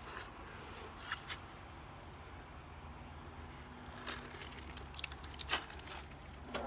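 Scattered small clicks and rustles of objects being handled, most around one second in and again between four and five and a half seconds in, over a low steady hum.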